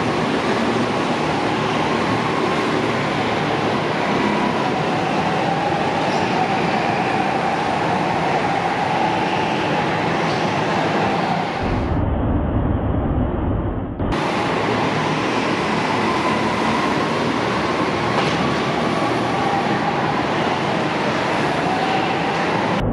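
Go-karts lapping an indoor track: a steady, loud mix of kart motors and tyre noise, with a whine that slowly rises and falls in pitch. About twelve seconds in, the sound turns muffled for around two seconds.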